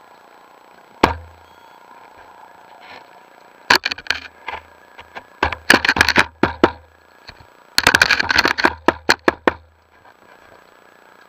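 Underwater bursts of rapid sharp clicks and knocks, each with a dull low thud, coming in four clusters: a single knock about a second in, then three longer rattling runs.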